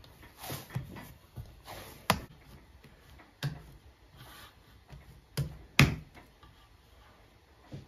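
Hands patting and pressing a large mass of risen dough in an enamel basin: soft pats and brushing, with a few sharp slaps, the loudest two close together about five and a half seconds in.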